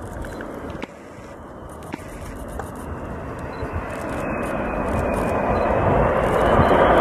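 Boeing 747 jet engines after touchdown, a roar that grows steadily louder, with a thin whine that climbs in pitch toward the end.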